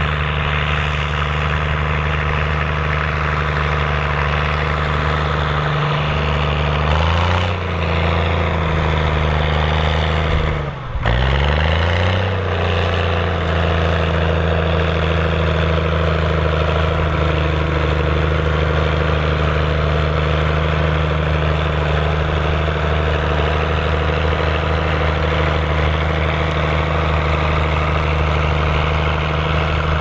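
Fordson Super Major's four-cylinder diesel engine running steadily while pulling a mounted plough through the soil. Its note shifts briefly twice in the first half, with a short dip about eleven seconds in, then holds steady.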